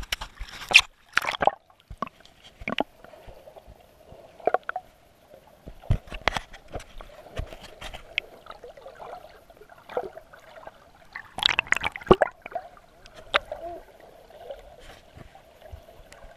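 Sea water heard through a submerged action camera: muffled gurgling and sloshing, broken by irregular sharp clicks and knocks.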